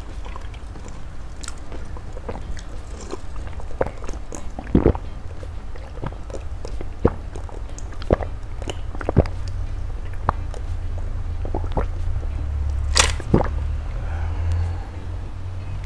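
Close mouth sounds of eating and drinking from a bowl, with scattered sharp clicks and knocks as the bowl is handled, over a steady low hum. The loudest click comes about thirteen seconds in.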